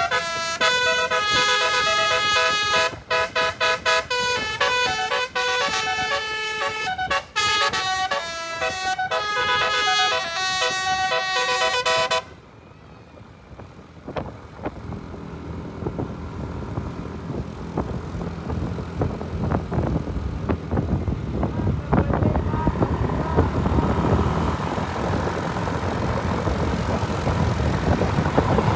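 Bus telolet horn, a multi-tone air horn, playing a quick melody of short notes that cuts off suddenly about twelve seconds in. After it comes a rising engine and traffic noise.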